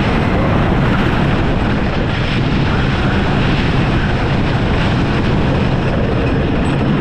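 Gravity Group Timberliner train running fast over the wooden coaster track, a loud steady rumble and rattle of the wheels, with heavy wind noise on the front-row camera.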